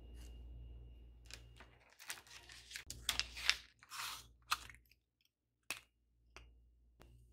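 A metal offset spatula cutting through a block of butter on its paper wrapper: a run of short crackling scrapes as the blade slides through and the wrapper crinkles, followed by a few single sharp ticks. A low hum sounds under the first two seconds.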